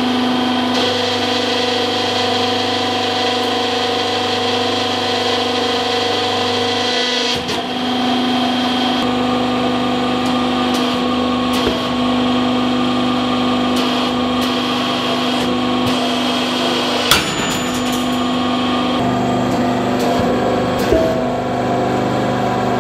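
Hydraulic press running with a steady hum and whine from its pump and motor. There is one sharp crack about seventeen seconds in as steel balls are squeezed between the platens.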